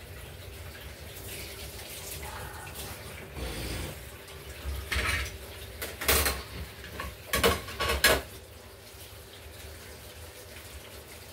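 Dishes and cutlery clattering at a sink with water running. A run of clinks and knocks comes in the middle; the loudest strikes fall just after six seconds and around seven and a half to eight seconds in.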